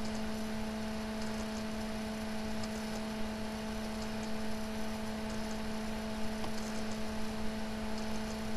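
Steady hum with an even hiss underneath, with a few faint ticks.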